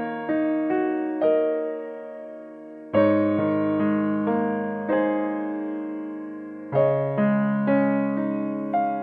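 Background piano music: slow, gently struck notes and chords, each ringing out and fading.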